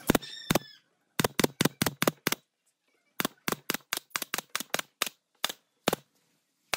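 Pneumatic F30 brad nailer firing brads into wooden slats: about twenty sharp shots in quick runs of four or five a second, broken by short pauses.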